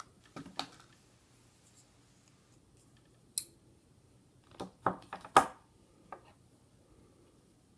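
A few scattered light clicks and taps from handling a folding knife and small objects. The loudest comes in a short cluster about five seconds in, between long near-quiet gaps.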